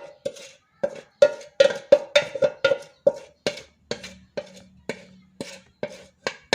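A metal spoon knocking and scraping against cookware about three times a second, getting the thickened ginger and palm-sugar syrup out into a glass. The early knocks ring with a clear tone that dies away after about three seconds.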